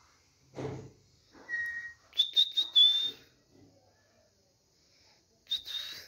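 Indian ringneck parakeet whistling: short, high whistles, with the loudest run of several quick notes about two seconds in and another brief whistle near the end.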